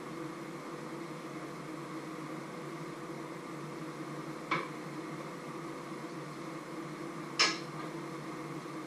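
Metal cookware clanking twice on a stovetop, once about halfway through and louder near the end, over a steady hum.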